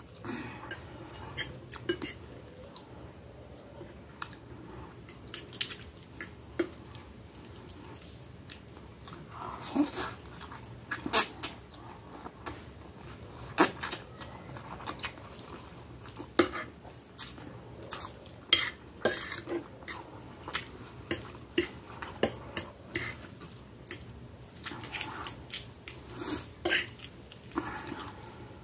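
Metal fork and spoon clinking and scraping against a plate while twirling spaghetti, in irregular scattered clicks with quieter gaps between.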